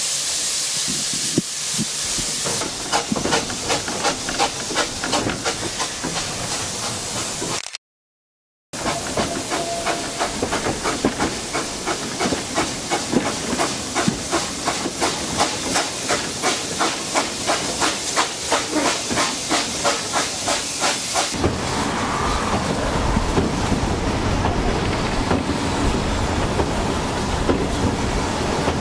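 Narrow-gauge tank steam locomotive hauling its train: a hiss of steam, then steady chuffing exhaust beats, about three a second, as it works the train. The sound cuts out for about a second near 8 s. Around 21 s the beats give way to the steady rumble of the carriages running on the rails.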